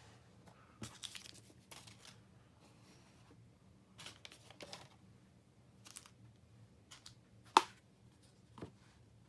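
Packaging and small items being handled and moved aside on a table: short rustling and crinkling noises with scattered light clicks. One sharp click about three-quarters of the way through is the loudest sound.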